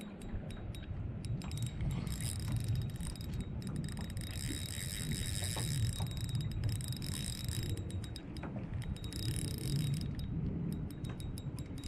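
Fishing reel clicking and whirring in stretches while a hooked fish is being played on a bent rod, over a steady low rumble of wind and water.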